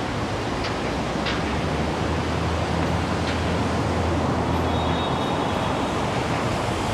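Steady rushing city street noise of traffic and wind, with a low hum that grows louder through the middle and a few faint clicks.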